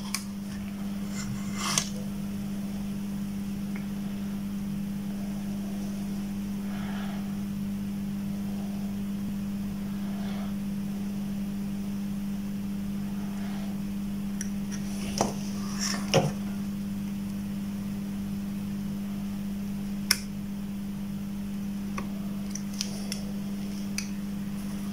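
A steady low hum with a few sharp clicks and taps as multimeter probes touch and a circuit board is handled.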